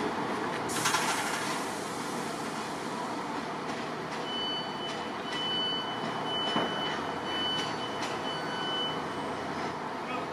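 ScotRail Class 158 diesel multiple unit running slowly over points and round a curve, with a short clatter about a second in. From about four seconds in, an on-off high-pitched squeal in uneven pieces, typical of wheel flanges on the tight curve.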